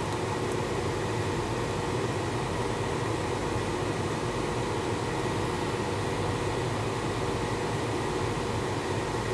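Steady hum and hiss of a running fan or blower, with no separate knocks or clicks.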